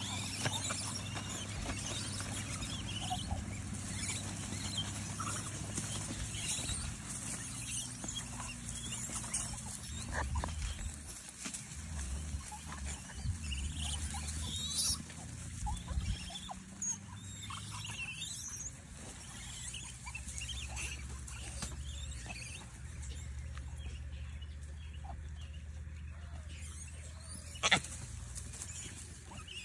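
A troop of gray (Hanuman) langurs crowding and scrambling for food on dry ground: scuffling and rustling, with scattered short high chirps and one sharp knock near the end.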